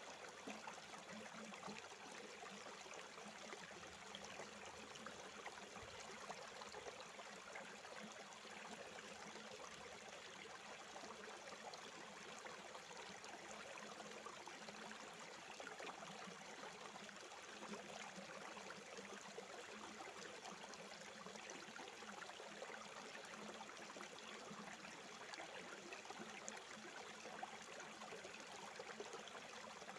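Faint, steady rush of a river flowing over rocks.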